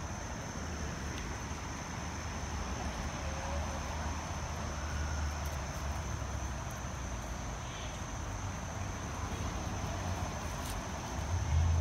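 Insects trilling in one steady high-pitched drone, over a low rumble of wind or distant traffic.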